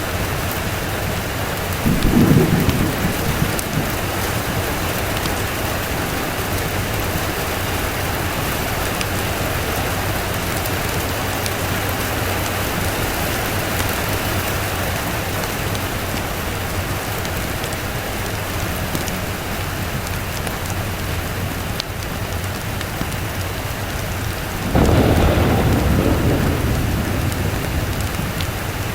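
Steady heavy rain with two rolls of thunder: a short low rumble about two seconds in, and a louder, longer one near the end that fades away over a few seconds.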